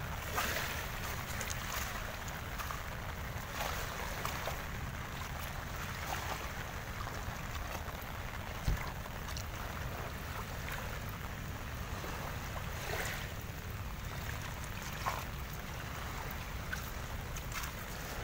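Strong wind buffeting a phone microphone: a steady low rumble with a hiss over it, broken by a few soft crunches and one short thump.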